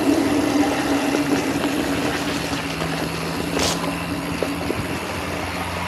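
Mountain bike riding on a dirt track: steady tyre-rolling and wind noise on a small action camera, with a low steady hum underneath and a brief rattle about three and a half seconds in.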